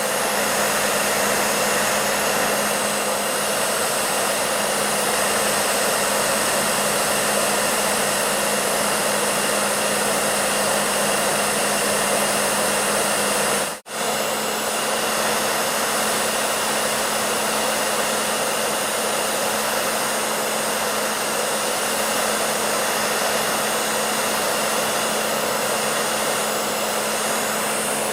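Electric hair dryer running steadily: a constant rush of air with a steady motor hum beneath it. The sound drops out for an instant about halfway through, then carries on as before.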